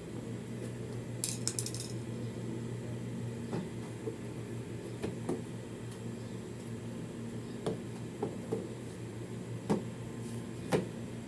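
Scattered light clicks and knocks of tools and parts being handled during hands-on washing machine repair, with a quick run of high ticks about a second and a half in, over a steady low hum.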